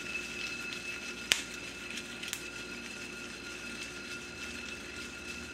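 A skillet of toasted dry spices, cinnamon sticks and bay leaves, being shaken on the stove, with light clicks from the pan and spices, the sharpest about a second in and another a second later, over a steady hum.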